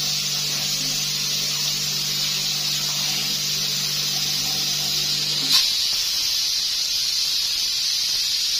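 Stovetop pressure cooker on a gas burner letting off steam with a steady hiss. A low hum underneath stops with a click about five and a half seconds in.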